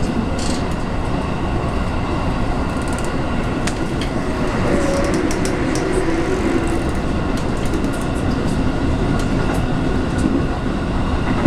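Cabin running noise of a JR West 221 series electric train: a steady rumble of wheels on the rails, with scattered clicks over the rail joints and a low whine that swells for a few seconds around the middle.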